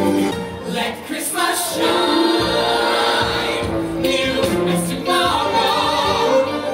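Stage-show music with a choir singing held notes; a low bass part comes in about two seconds in.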